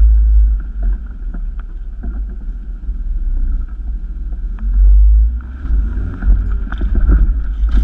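Toyota Hilux driving slowly over a rough, wet dirt track, heard from inside the cab: a heavy low rumble with the engine running, scattered knocks and rattles from the body and suspension, and the engine revving up a little near the end.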